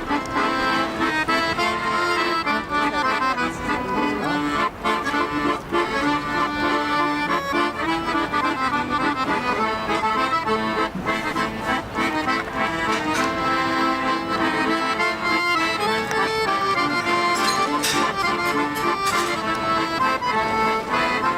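Accordion music playing a tune of held notes and chords.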